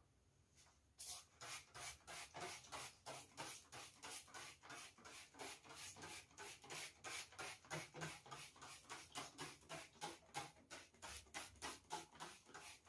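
Rapid, even scrubbing or rubbing strokes on a surface, about four a second, starting about a second in.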